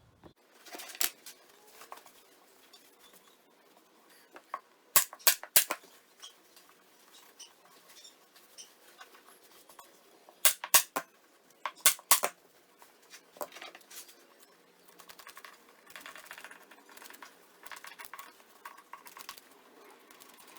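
Staple gun driving staples through upholstery fabric into a chair seat, sharp snaps in quick clusters of three or four, with a single one about a second in. Fabric is rustled and handled between the shots.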